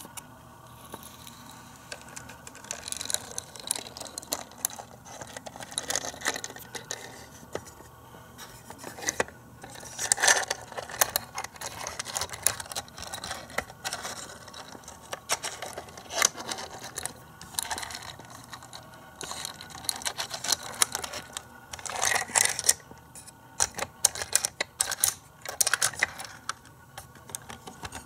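Small plastic parts of a Micro Machines playset clicking, tapping and rattling as they are handled, with a tiny toy car set down and a hinged building piece lifted and moved. Irregular sharp clicks come in busy clusters.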